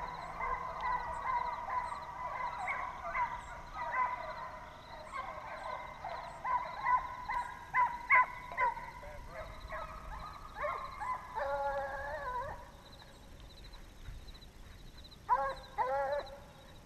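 A pack of deer hounds baying while running a deer, several voices overlapping. The calls thin out after about twelve seconds, and a last short burst of bawls comes near the end.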